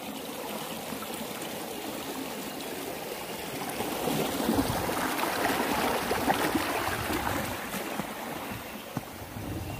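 Small rocky forest stream running and trickling over stones, growing louder for a few seconds in the middle.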